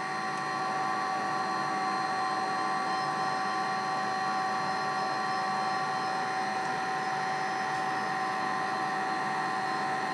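Lulzbot Mini 3D printer running its start code after retracting the filament: a steady machine hum with several high whining tones held unchanged throughout.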